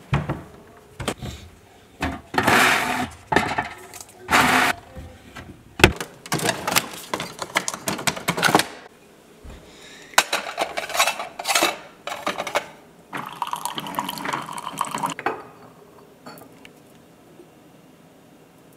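Kitchen clatter: a wooden cabinet door and a ceramic mug handled on a granite counter, with a coffee maker filling the mug in short bursts. It goes much quieter near the end.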